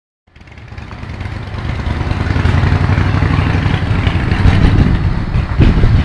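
Diesel engine of a Volvo wheeled excavator running with a deep, steady rumble, rising over the first couple of seconds and at its loudest near the end.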